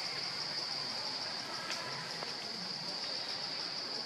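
Steady, high-pitched insect drone from the forest canopy, with a couple of faint ticks.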